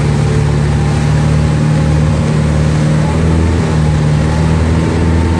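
Ski boat's engine running steadily at speed, a constant low drone, with the rush of water and wind over the hull.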